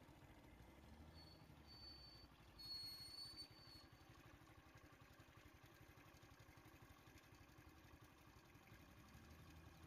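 Faint low rumble of a vehicle engine idling. Two short, high, thin whistling tones come about a second in and again near three seconds in.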